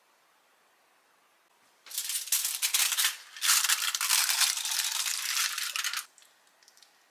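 A dry, dense rattle of many small hard pieces, in two runs of about a second and a half and two and a half seconds with a brief break between, trailing off into a few stray clicks.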